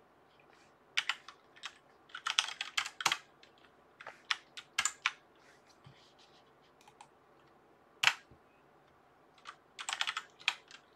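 Typing on a computer keyboard in short bursts of keystrokes with pauses between, and one louder single click a little past the middle.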